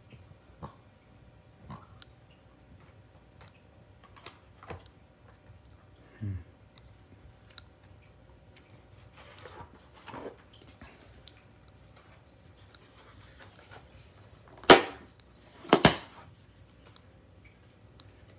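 Scottish terrier puppy playing with and mouthing toys: scattered soft clicks, rustles and chewing, then two sharp, loud noises about a second apart late on.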